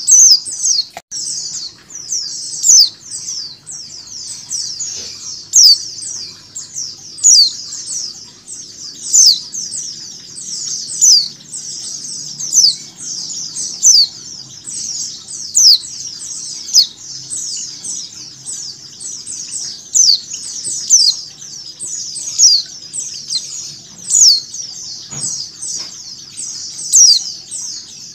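White-eyes twittering densely and without pause, a flock sound, with a louder, sharp, falling call standing out about every one to two seconds: a female white-eye's 'ngecal' call, played to lure a caged white-eye into singing.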